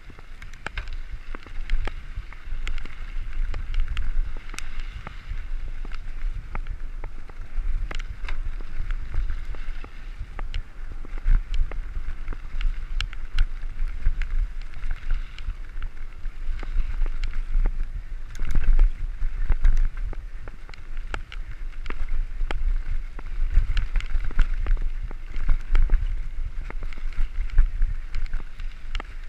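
Mountain bike rolling fast over a dirt and gravel track: rumble and buffeting of wind on the camera's microphone, tyre noise, and frequent sharp clicks and rattles from the bike over bumps.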